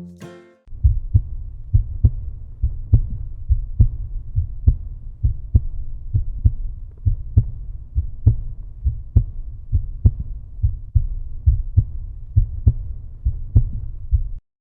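Closing music: a deep pulsing bass beat, about two strokes a second over a low rumble, after a brief bit of plucked string music at the very start; it cuts off just before the end.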